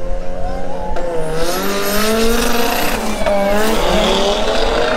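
Two drag cars, a Mk1 VW Golf and an Audi RS3, accelerating hard down the quarter-mile. Their engines rev up through the gears, with a shift about three seconds in, under a rising rush of noise.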